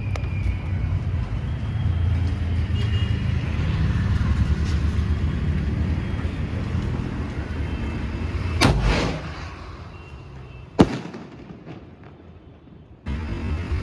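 A 2.5-inch aerial firework shell fired from its mortar tube: a launch thump about two-thirds of the way in, then a single sharp bang about two seconds later as the shell bursts. A steady low rumble runs under the first part, and loud noise starts again abruptly near the end.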